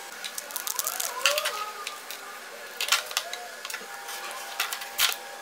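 Irregular sharp clicks and taps of thin plastic sheets being handled and cut with a snap-off utility knife drawn along a steel rule.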